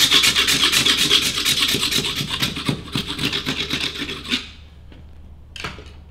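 Black wattle stick being scraped by hand to clean and smooth the wood for an uhadi bow, in quick, rapid strokes that stop about four seconds in. One more short scrape comes near the end.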